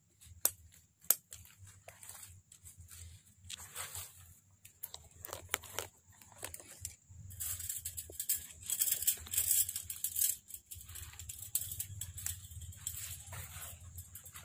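Handling noises from wiring a ficus bonsai: scattered sharp clicks of aluminium wire and pliers, the loudest about a second in, then a longer stretch of rustling leaves and wire from about seven seconds in. A faint steady high whine sits underneath.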